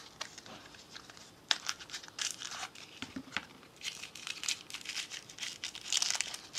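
Packaging around a small replacement glass tube crinkling and tearing in irregular bursts as it is unwrapped by hand.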